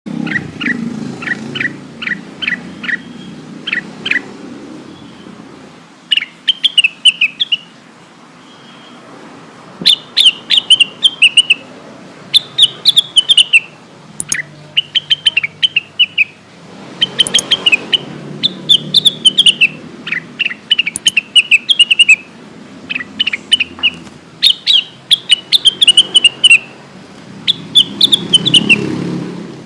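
Cucak wilis (a leafbird) calling: a run of sharp chips at first, then repeated short, quick twittering phrases with small gaps between them. It is the kind of call played to lure a silent bird into singing.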